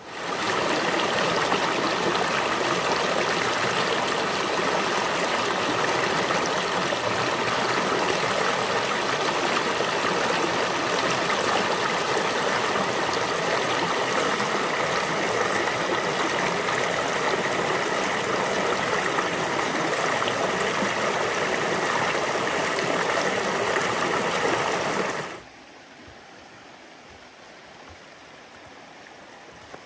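Creek water rushing over rocks in a small cascade, heard close up as a loud, steady rush. It cuts off suddenly near the end, leaving only a faint background.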